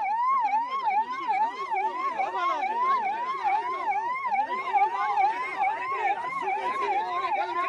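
Police vehicle siren in a fast yelp, its pitch sweeping up and down about three times a second, with a weaker, lower wavering tone beneath it.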